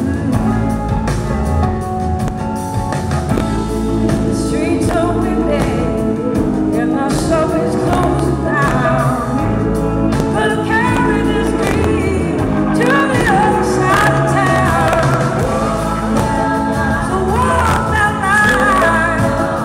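Live soul-blues band playing: a woman singing lead over electric guitar, bass and drums, with gliding, bent notes in the upper range from about halfway through.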